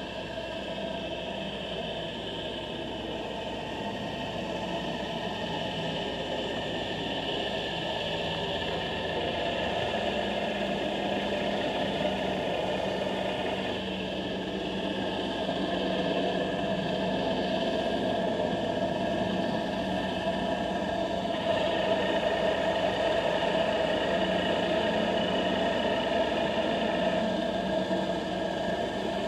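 A steady engine-like drone with several held tones, heard underwater through a camera housing. It grows slowly louder, and its tone shifts a little about halfway through and again near the end.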